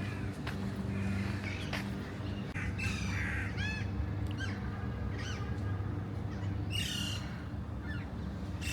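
Birds calling outdoors: several short arched calls, clustered about three to four seconds in and again near seven seconds, over a steady low drone.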